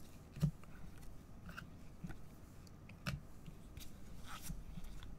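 Glossy trading cards being shuffled and flicked through in gloved hands: soft slides of card stock with light clicks as cards are tapped and moved. The sharpest tap comes about half a second in and another about three seconds in.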